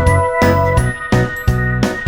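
Background music with a steady beat, deep bass and chiming keyboard tones.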